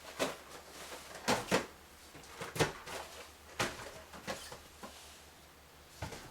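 Boxed toys and packaging being handled: a series of short knocks and rustles, about seven in all, as cardboard and plastic boxes are picked up and set down.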